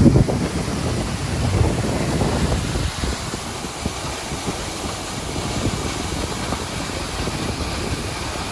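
Waterfall rushing in a steady roar, with wind buffeting the microphone in low gusts that are heaviest in the first three seconds.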